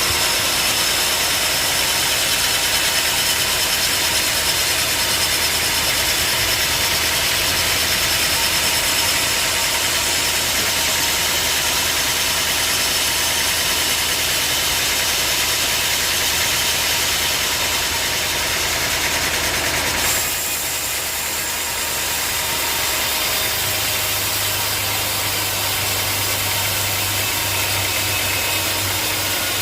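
Sawmill machinery running steadily: an engine hum under a loud, hissing saw noise. About twenty seconds in the sound changes abruptly, and a new low hum starts a few seconds later.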